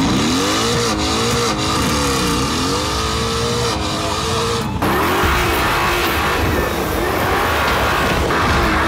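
Mercedes-AMG GT S's twin-turbo V8 accelerating hard with traction control off, its note rising and falling several times, heard at first from inside the cabin. About halfway through the sound changes abruptly to a brighter, hissier mix of engine and tyre noise.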